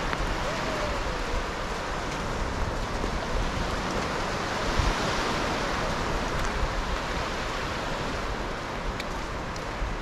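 North Sea surf breaking and washing up a flat sandy beach: a steady rushing, with a low rumble underneath.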